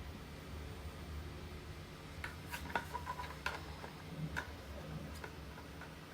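Light clicks and taps of 3D-printed plastic parts being handled and pushed together while fitting a figure's eye pieces, scattered from about two seconds in, over a steady low hum.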